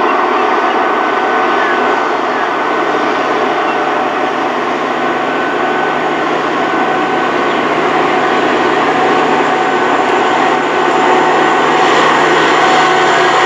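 Diesel-electric freight locomotives CSR006 and SCT002 approaching under power, a steady engine drone with a high whine over it, growing a little louder near the end as they come close.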